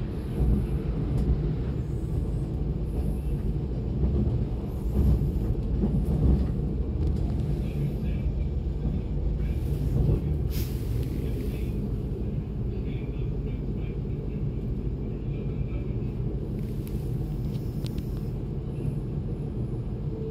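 Steady low rumble of a DB Class 425 electric multiple unit, with a faint steady hum under it.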